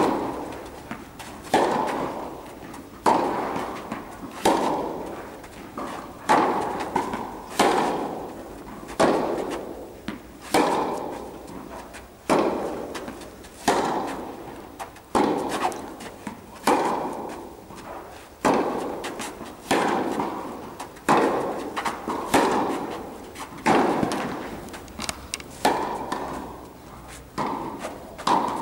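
A tennis rally on an indoor court: the ball is struck by rackets back and forth about every second and a half, and each hit rings on in the hall's echo.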